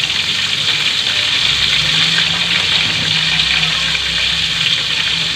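Flour-coated chicken pieces deep-frying in oil in a wok: a steady sizzle.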